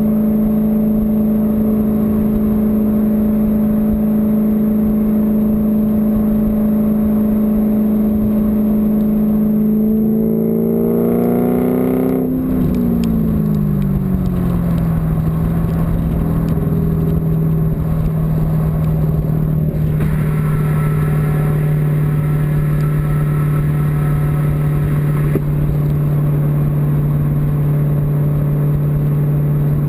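A motor running with a loud, steady hum. About ten seconds in it rises slightly in pitch, then over the next few seconds falls to a lower pitch that holds steady. The uploader labels the sound a misfire.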